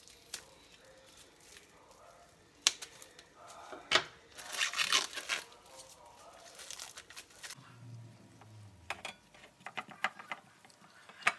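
Plastic cling wrap being snipped with kitchen shears and peeled off a rolled chicken breast: a couple of sharp snips, then a burst of crinkling about halfway through, followed near the end by a run of light ticks.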